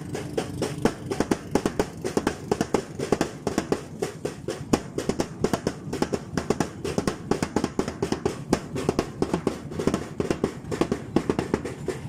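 Music with a fast, steady drumbeat.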